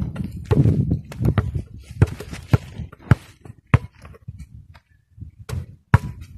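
A basketball bounced on hard dirt ground: sharp thuds about every half second, a short pause, then two more near the end.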